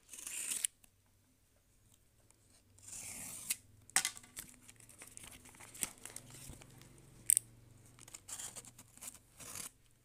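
Utility knife slicing packing tape on a cardboard box, with the tape tearing and crinkling in several short scratchy bursts and a few sharp clicks.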